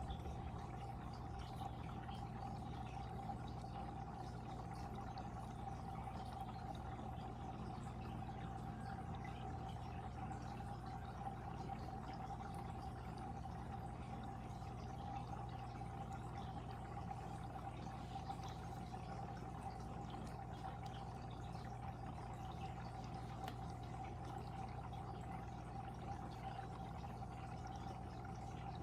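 Water flowing and trickling steadily into a fish tank, an even pouring sound with a steady low hum underneath.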